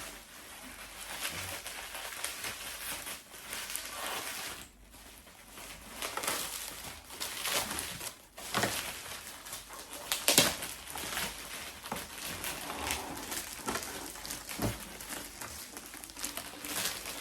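Plastic packaging and small parts being handled and unwrapped: rustling and crinkling with scattered clicks and knocks, the sharpest knock about ten seconds in.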